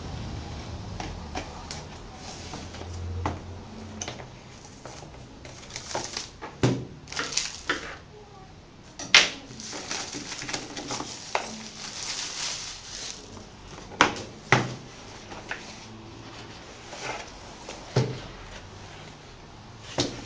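Unboxing handling: scattered sharp taps and knocks with stretches of rustling packaging. The loudest knocks come about a third of the way in and twice close together about two-thirds in.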